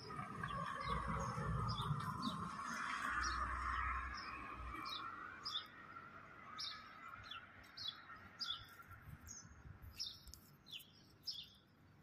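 A small bird chirping repeatedly, short high downward-sliding chirps about twice a second. A low rumble with a hiss under it in the first four or five seconds, then only the chirps.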